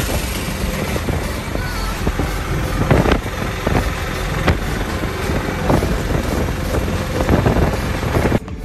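Riding in a moving auto-rickshaw (tuk-tuk): a small engine runs under steady wind and road noise, with a few sharp knocks. The sound drops suddenly near the end.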